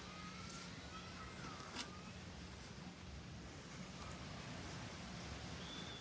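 Quiet beach ambience: a soft, steady wash of small surf on a calm shore, with a few faint, thin bird calls in the first two seconds and another short high call near the end.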